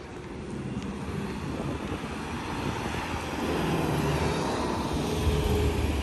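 Aircraft engine drone growing steadily louder as the plane comes nearer, with wind rumbling on the microphone near the end.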